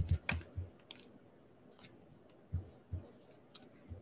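Baseball cards and packs being handled on a wooden tabletop: scattered soft clicks and low knocks, a cluster of them at the start and a few more near the end.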